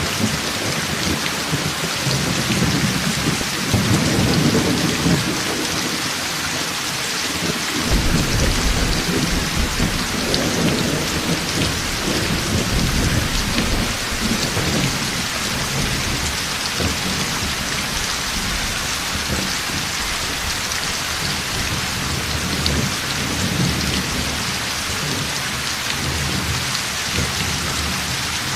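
Heavy rain falling steadily, with rolls of thunder rumbling underneath; the biggest roll begins about eight seconds in and lasts several seconds.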